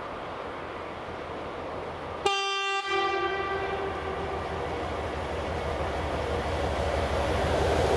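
An approaching diesel locomotive sounds one short horn blast about two seconds in, loud at first and then fading away over a couple of seconds. Under it the rumble of the oncoming train grows steadily louder.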